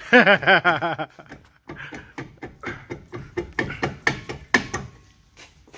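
Rear brake drum being rocked and worked off the hub by hand: a run of quick metal clunks and knocks. A short wavering, pitched sound comes before them in the first second.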